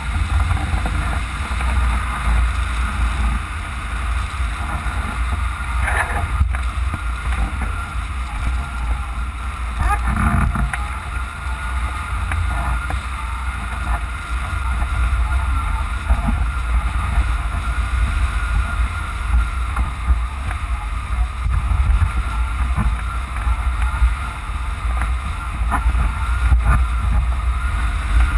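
Airflow buffeting the microphone of a camera mounted on a hang glider in flight: a loud, steady low wind rumble.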